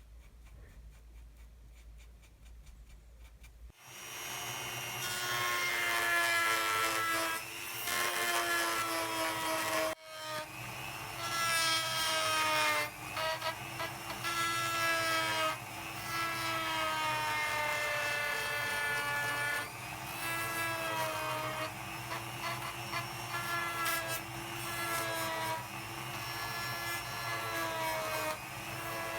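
Small rotary tool fitted with a sanding drum, grinding down the edges of a wooden capping. It starts about four seconds in, after a faint hum, and its whine drifts and dips in pitch as it bears on the wood.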